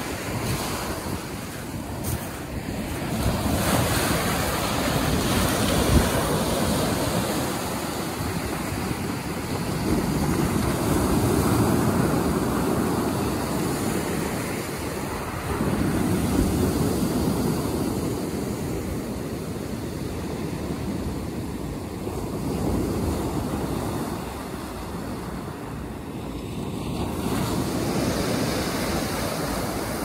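Black Sea surf breaking on a pebble beach and washing back over the shingle, swelling and ebbing roughly every five to six seconds.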